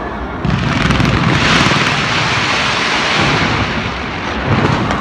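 Fireworks barrage: a dense mass of bursts and crackle that swells suddenly about half a second in and holds as a continuous loud roar.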